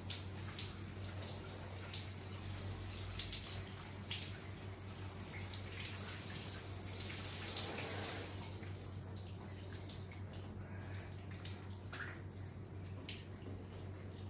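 Shower water splashing and dripping onto soaked clothing and the shower tray, over a steady low hum. A little past halfway the splashing thins out to scattered drips.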